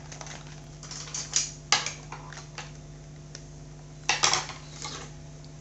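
Scattered clicks and light clattering knocks of a laptop hard drive and a small SSD being handled and set down, with the loudest clatters about a second and a half in and again around four seconds in, over a steady low hum.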